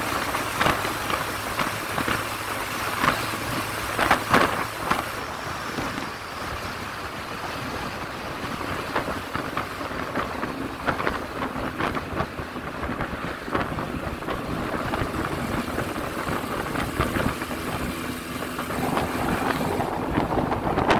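Wind buffeting a camera mounted outside on the hood of a moving car, with irregular crackling gusts on the microphone, loudest about four seconds in, over a steady rush of road and engine noise.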